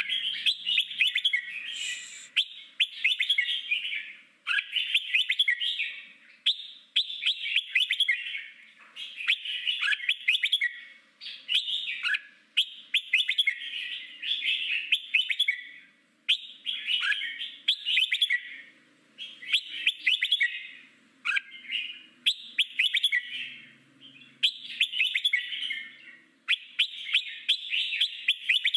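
Red-whiskered bulbul singing in the 'forest voice' style: a steady run of short song phrases, one every second or two, each a quick string of chirping notes.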